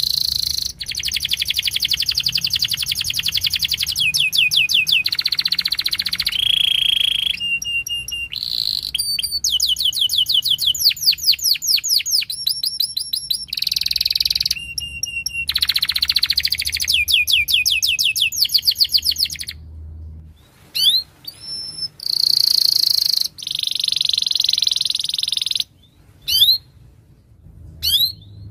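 Domestic canary singing a long, unbroken song of rapid trills and repeated whistled notes, changing from one rolling phrase to the next. After about twenty seconds the song breaks into shorter phrases with pauses between them.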